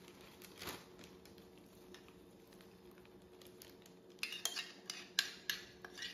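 Metal spoon scraping and tapping inside a ceramic mug to get out the last of the melted butter mixture. About four seconds in comes a quick series of clinks, after a quiet stretch with faint steady hum and a single click.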